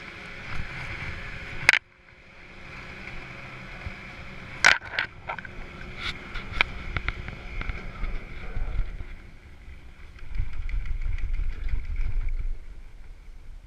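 Chairlift loading and ride: a steady mechanical hum, a sharp clack about two seconds in, then a run of clacks and rattles around five to seven seconds in, and a low rumble in the second half.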